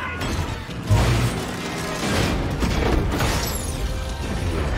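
Battle sound effects from an animated war film: a heavy boom about a second in, then further blasts and low rumble over a music score.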